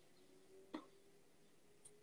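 Near silence: faint room tone with one soft click a little under a second in and a tiny tick near the end.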